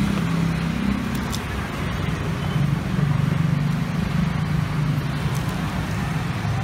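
Road traffic noise: a steady hum of passing vehicles with a low, wavering engine drone.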